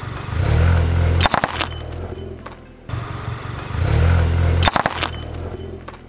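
A car rolls slowly over a row of glass light bulbs: a low engine and tyre rumble, then a quick cluster of sharp pops and crackling glass as the bulbs burst under the tyre. The same sequence is heard twice.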